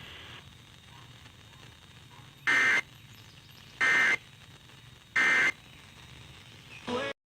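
Three short bursts of Emergency Alert System digital data tones, about 1.3 seconds apart, over faint radio hiss: the SAME end-of-message code that closes the warning broadcast. Near the end a brief blip, then the audio cuts out.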